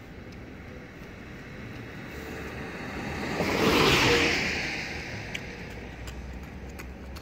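A car passing close by: its tyre and engine noise swells, is loudest about four seconds in, then fades away.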